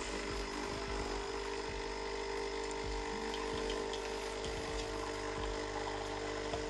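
A small electric motor running with a steady, even hum. It switches on abruptly just before and holds a constant pitch throughout, with a few faint clicks.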